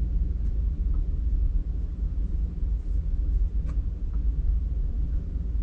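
Steady low rumble with a faint click about three and a half seconds in.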